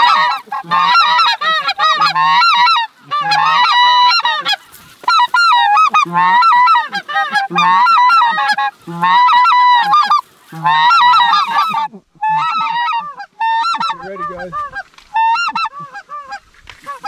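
Several specklebelly (greater white-fronted) goose calls blown together in a loud, rapid, overlapping yodelling chatter, pausing and starting again every second or two. The calling thins out and gets quieter about twelve seconds in.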